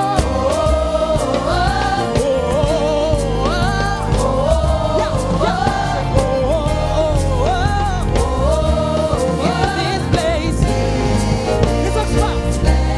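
Gospel choir singing with a live band: sung melody over a heavy bass line and steady cymbal-driven drums.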